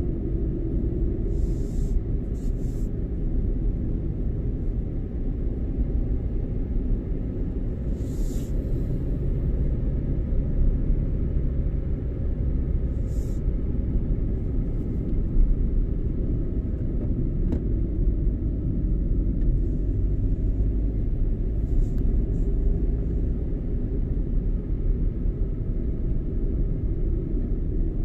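Car driving: a steady low rumble of engine and road noise, with a few brief, faint higher-pitched hisses.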